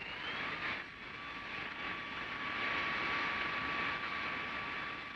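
Panavia Tornado prototype's twin RB199 turbofan engines running at taxi power: a steady high whine over a rushing jet noise, growing louder about two seconds in.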